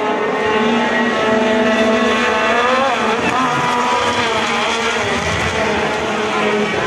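Race car engines running at speed, the pitch rising and falling as they accelerate and lift off, with a clear rise and drop about three seconds in.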